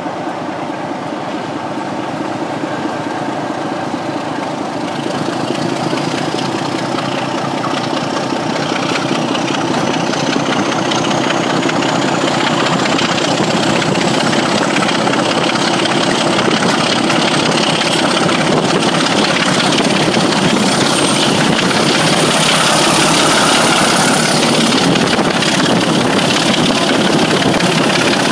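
Heritage diesel locomotive hauling a train, heard from a carriage window, its engine working hard and growing louder as the train picks up speed. A high whistle rises slowly in pitch over the first twenty seconds.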